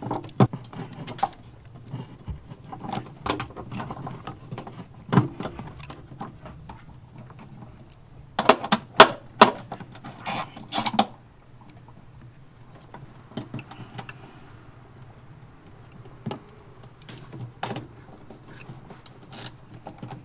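Scattered clicks and knocks of hands working on wiring and plastic parts, fitting and routing a cable, with a cluster of louder sharp clicks from about eight to eleven seconds in. A faint steady high tone runs underneath.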